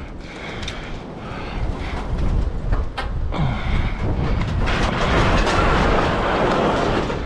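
Wind rumbling on the microphone while a heavy metal stove is being handled, with a sharp knock about three seconds in and a louder rushing stretch in the last couple of seconds.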